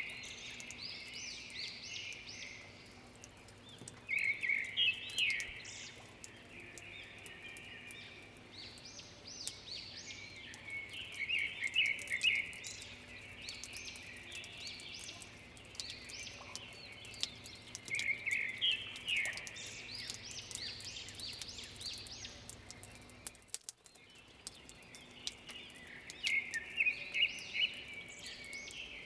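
Birds singing after rain: short bursts of fast, repeated chirping phrases every several seconds, over a steady soft background hiss.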